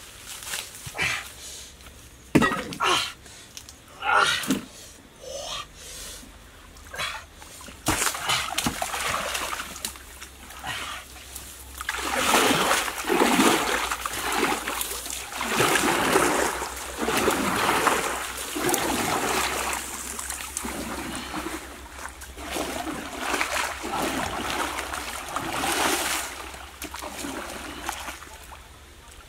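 A wooden paddle splashing and churning water in repeated strokes as a small wooden dugout boat is paddled along a stream. In the first several seconds, before the paddling, there are a few sharp knocks and rustling.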